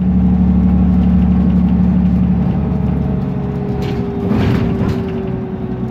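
BMC Procity city bus's Cummins ISB Euro 5 turbo diesel heard from inside the cabin while riding. A strong low engine drone drops away about two and a half seconds in. A whine falls slowly in pitch throughout, and a short hiss comes about four seconds in.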